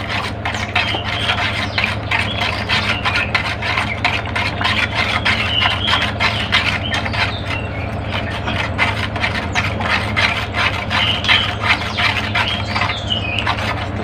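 A spoon stirring sugar into water in a plastic jug, scraping and knocking against its sides about four or five times a second, over a steady low hum.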